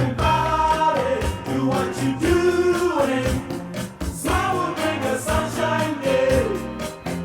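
Recorded pop song with singing over a band, a steady beat and bass, played back from a Technics CD player.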